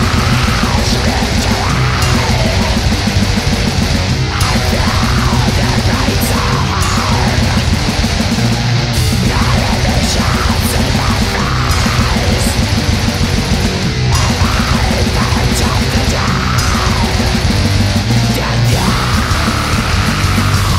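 Heavy metal song playing loud and dense: distorted guitars over fast, driving drums, without a break.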